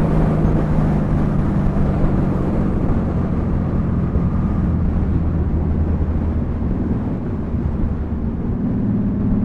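Honda Valkyrie's 1520 cc flat-six running through Cobra six-into-six pipes while riding, mixed with wind noise on the helmet-vent microphone. The engine note drops lower through the middle and rises again near the end.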